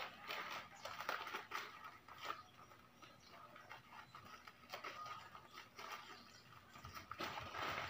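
Plastic parcel wrapping crinkling and rustling in irregular short crackles as it is handled and slit open with a small blade.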